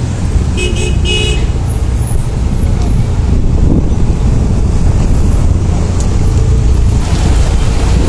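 Steady low rumble of nearby road traffic and running vehicle engines, with two short horn toots about a second in.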